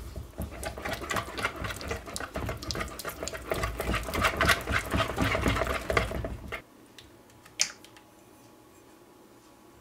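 Wire whisk beating eggs in a bowl: fast, irregular rattling strokes against the bowl, stopping about six and a half seconds in. One short sharp click about a second later.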